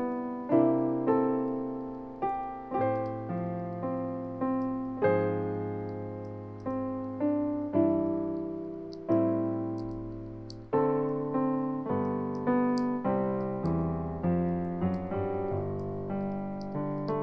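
Background piano music: slow notes and chords, each struck and then fading before the next.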